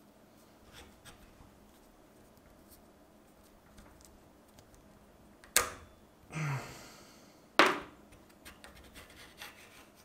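Kar98k bolt's firing pin assembly being taken apart by hand against a bench vise: faint metal handling noises, with two sharp metal clicks about five and a half and seven and a half seconds in, and a short rushing noise between them.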